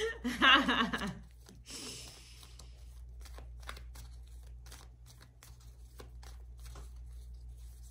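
Tarot cards being handled, with soft rustling and light clicks, after a brief wordless vocal sound about half a second in.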